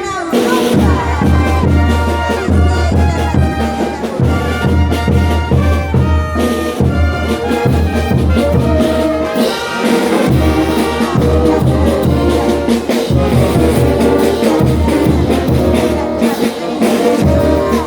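Bolivian carnival brass band playing: trumpets and trombones in full ensemble over a heavy low bass.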